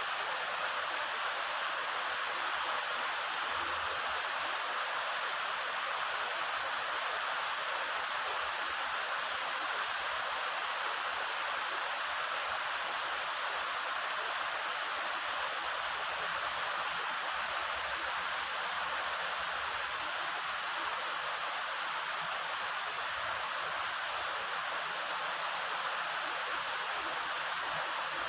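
Heavy rain falling steadily in an even, unbroken hiss, with two faint single ticks.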